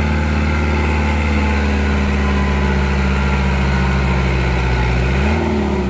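Vehicle engine running at a steady speed, revving briefly up and back down near the end.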